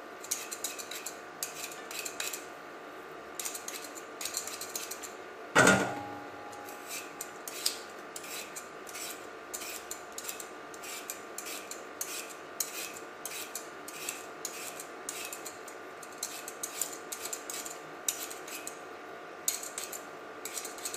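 Hand-held vegetable peeler scraping the skin off a raw potato in quick, irregular strokes. About five and a half seconds in, a peeled potato lands in a stainless steel bowl with a single clunk and a short metallic ring.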